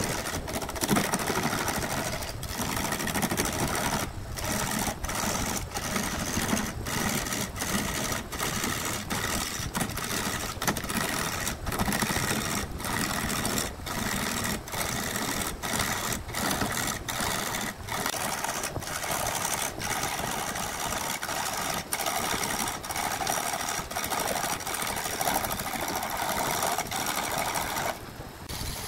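Wood lathe running with a turning tool cutting into a spinning laminated wooden blank: a steady whirring and scraping. The sound briefly drops out many times.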